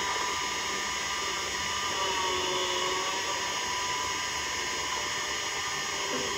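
Steady whirring noise of a small motor, with a faint hum that wavers slowly in pitch, under constant tape hiss.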